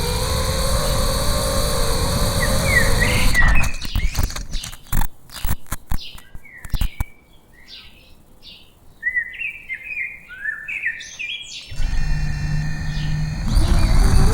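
FPV quadcopter's motors and propellers whining, bending in pitch with throttle. About three and a half seconds in comes a clatter of knocks as the drone crashes and the motors cut out. Small birds chirp in the quiet that follows, then a steady hum starts and the motors whine again near the end.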